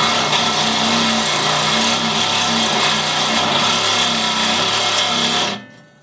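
Reciprocating saw (Sawzall) cutting through a welded stitch weld on a skid-plate bracket, running steadily and then stopping about five and a half seconds in.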